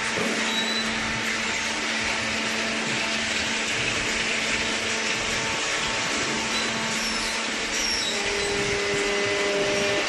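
Baling-line machinery running steadily: an even, broad hiss with a faint low hum underneath, and a second faint hum joining near the end.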